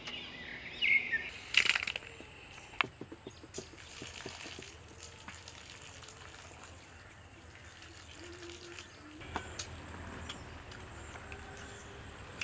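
A steady high-pitched insect drone starting about a second in, over quiet outdoor ambience, with a few soft knocks and clicks near the start.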